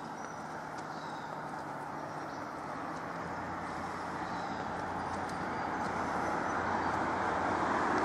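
Steady outdoor rushing noise that grows gradually louder, with a few faint high bird chirps over it.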